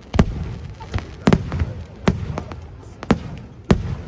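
Aerial fireworks shells bursting overhead: a quick series of about six sharp bangs, each trailing off in a low, echoing rumble.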